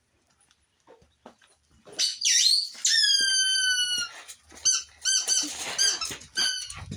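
Squeaky dog toy being squeezed and chewed by a dog: one long squeak falling slightly in pitch, then a quick run of about six short squeaks.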